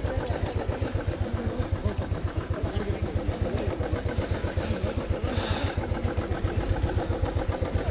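Royal Enfield Himalayan's single-cylinder engine running at low revs as the motorcycle rolls slowly, an even thump about six times a second. A short hiss comes about five seconds in.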